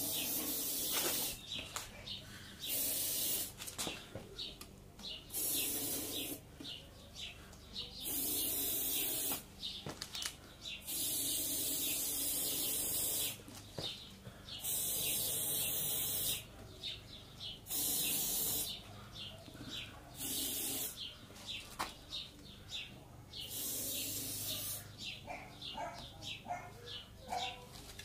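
Aerosol deodorant can sprayed into a motorcycle tyre between the bead and the rim in about nine hissing bursts of one to two and a half seconds each. The tyre is being filled with flammable propellant so that lighting it will blow the bead out onto the rim.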